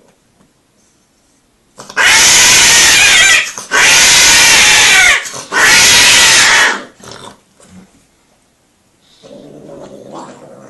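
A cat calling very loudly in three long calls, each more than a second long, then a much fainter call near the end.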